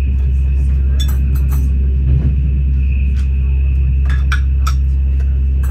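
Inside a moving Glacier Express passenger car: a steady low rumble with a constant high whine over it, and a few sharp clinks and rattles about a second in and again after four seconds.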